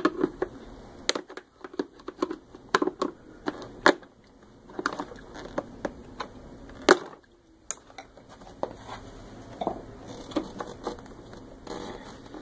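Two flathead screwdrivers prying a hose retainer out of a Rug Doctor carpet cleaner's plastic housing: irregular clicks, taps and scraping of steel on plastic, the loudest click about seven seconds in.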